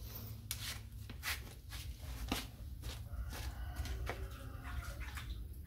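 Scattered light clicks and knocks, a few in each second, over a low steady rumble.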